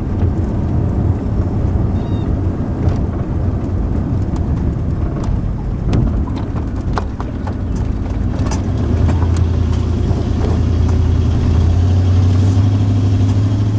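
Class C motorhome driving on a paved road, heard from inside the cab: a steady engine and road drone, with a cluster of knocks and rattles about six seconds in as it bumps over railroad tracks. The engine drone grows louder over the last few seconds.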